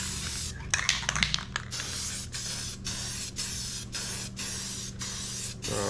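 Rust-Oleum aerosol spray paint can spraying paint in a run of short hissing bursts, with brief breaks roughly every half second to a second.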